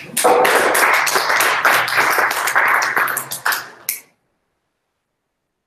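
A small group of people clapping, a dense run of quick hand claps for about four seconds that stops abruptly.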